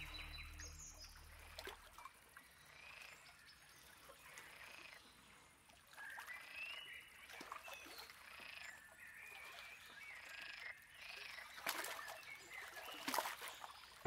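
Faint birds calling, with short scattered chirps and whistled glides over a quiet outdoor background. The last of a soft music track fades out in the first two seconds.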